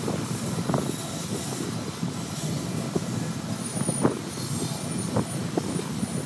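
Freight train of covered hopper cars rolling past: a steady rumble of steel wheels on rail, broken by a few short clanks.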